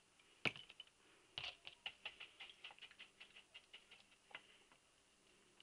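Small oily metal engine parts being handled over metal pans: one sharper clink about half a second in, then a quick run of faint light ticks and clicks for about three seconds.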